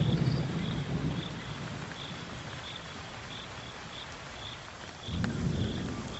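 Thunderstorm: a low thunder rumble fading over the first second, over the steady hiss of rain, and a second rumble swelling about five seconds in. A faint high chirp repeats about twice a second throughout.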